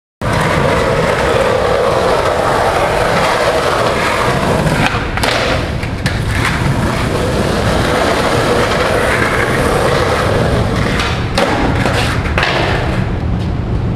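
Skateboard wheels rolling on concrete in a steady roar, with a few sharp clacks of the board popping and landing, about two in the middle and two more near the end.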